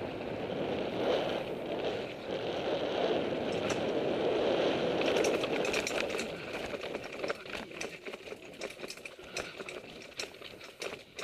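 Mountain bike riding dirt singletrack: a steady rolling rush of tyres and moving air, then from about six seconds in a run of sharp rattles and knocks as the bike crosses rocks.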